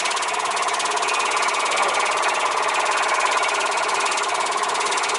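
Industrial steak slicing machine running, slicing meat in a fast, steady mechanical rhythm with no pauses.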